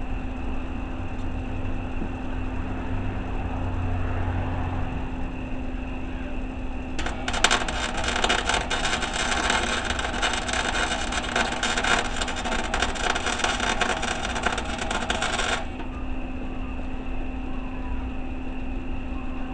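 Welding arc crackling for about eight seconds, starting about seven seconds in and cutting off suddenly, over a steady electrical hum.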